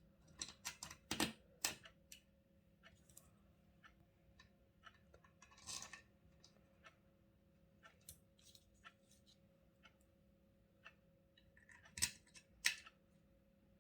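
Small clicks and knocks of plastic and metal parts of an electric iron being handled and fitted back together during reassembly, with a cluster of clicks at the start and two louder clicks near the end.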